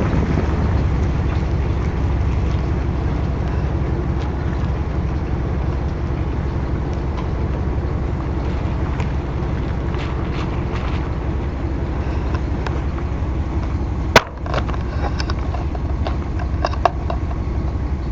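Car driving slowly, a steady low rumble of engine and road noise inside the cabin, with one sharp knock about fourteen seconds in.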